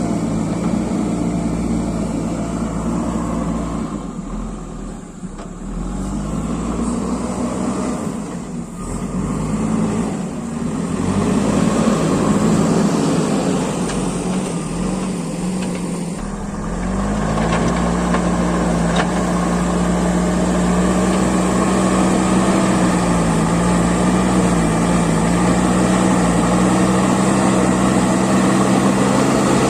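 Diesel engine of a JCB backhoe loader running under load as it works the ground. The engine note sags and picks up again a few times, then holds a steady, higher speed from a little past halfway.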